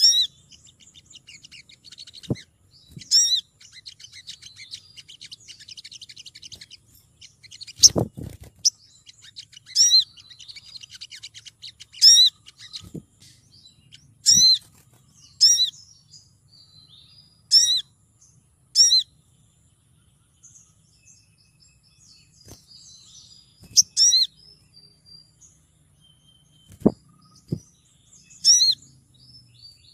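Female olive-backed sunbird (Cinnyris jugularis) calling to draw a male: sharp, high chirps repeated every second or two, with stretches of softer, rapid twittering between them. A few low thumps come through, the loudest about eight seconds in.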